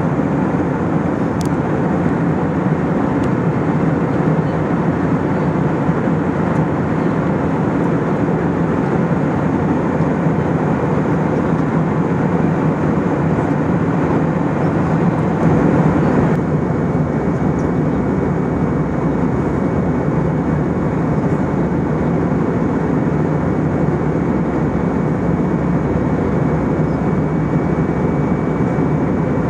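Steady in-flight cabin noise of an Airbus A319-111 heard from a window seat beside the wing: an even rush of air and hum from its CFM56-5B5 turbofan engines. About sixteen seconds in the sound shifts slightly, leaving a faint steady high whine on top.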